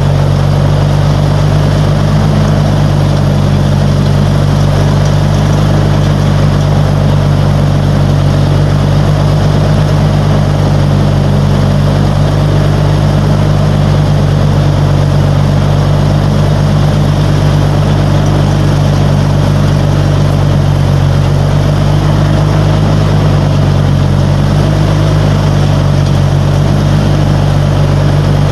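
Riding lawnmower engine running steadily, driving a belt-driven Craftsman front tine tiller mounted on the mower.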